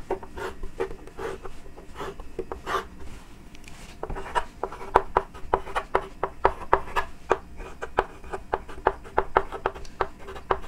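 Chalk on a blackboard: a few longer scraping strokes drawing straight lines, then, from about four seconds in, a quick run of short taps and scratches as letters and numbers are written.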